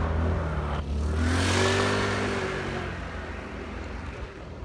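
An engine revs up and eases back down, loudest about a second and a half in, then settles to a lower steady run.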